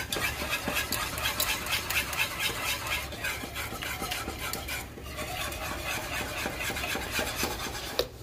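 Wire whisk beating a creamy cheese sauce in a saucepan: a quick, continuous run of scraping, swishing strokes against the pot, easing briefly about five seconds in.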